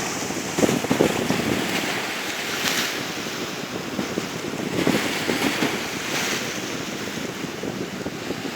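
Sea surf washing onto the shore under a strong wind, with gusts buffeting the microphone. The surf swells louder about three seconds in and again about six seconds in.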